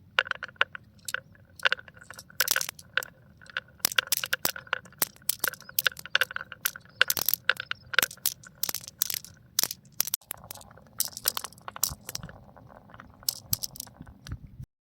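Marbles rolling and clattering down a marble run: a fast, uneven run of sharp clicks and knocks as they strike the track pieces, over a faint ringing rumble of rolling. About ten seconds in the sound briefly drops out and turns to a softer, denser rattle.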